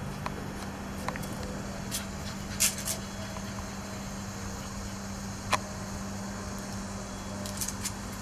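Shih Tzu puppies scampering on a concrete patio, with scattered sharp clicks and taps, loudest in a quick cluster about two and a half seconds in. Under them runs a steady low hum.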